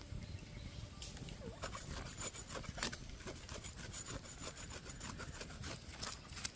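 Quick, irregular scraping or rasping strokes, several a second, starting about one and a half seconds in.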